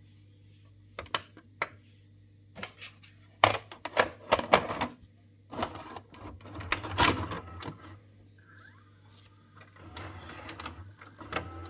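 Funai 31B-250 four-head VHS video recorder taking in a cassette: clicks and plastic clacks as the tape is pushed into the slot, then the loading mechanism whirring and clattering as it draws the cassette down and threads the tape to play.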